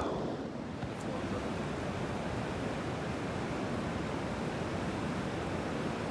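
Steady, even rushing noise with no distinct events, and a faint click about a second in.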